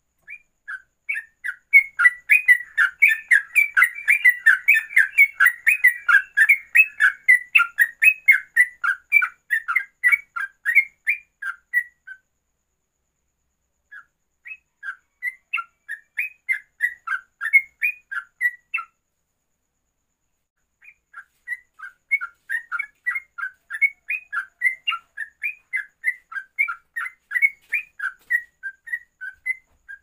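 Yellow-vented bulbul (trucuk) singing fast runs of short whistled notes in the ropelan style, in three bursts: a long one of about twelve seconds, a shorter one after a two-second pause, and another after a second pause.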